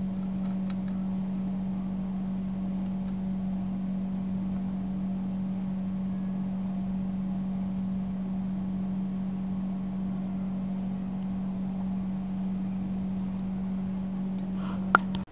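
A steady low machine hum at one unchanging pitch, with a sharp click near the end just before it cuts off suddenly.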